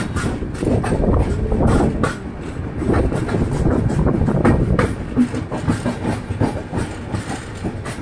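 Indian Railways passenger train running, heard at an open coach doorway: a steady low rumble of wheels on rails with irregular clattering knocks and rattles from the coach.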